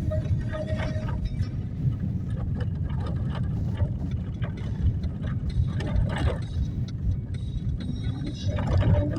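Small mountain stream at low water running over rocks, a steady rushing with a heavy low rumble underneath.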